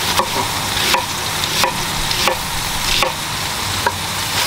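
Chef's knife cutting through a red onion and knocking on a wooden cutting board, about three cuts every two seconds. Underneath is the steady sizzle of ground beef and chicken frying on a hot grill.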